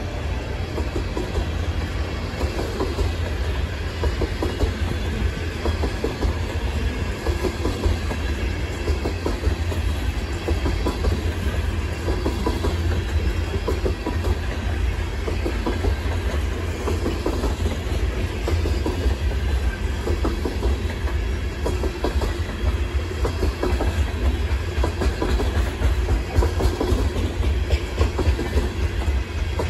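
Coal hopper cars of a long freight train rolling past, steel wheels clacking over the rail joints in a steady, even rhythm over a low rumble.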